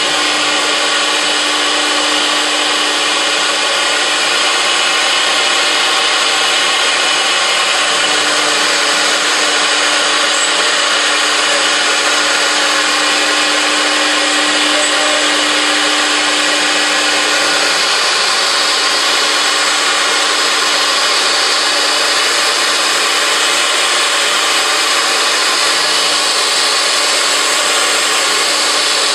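A multi-spindle CNC wood router running, its spindle bit cutting and drilling into a wood panel: a loud, steady cutting noise with a steady tone underneath that stands out more through the middle.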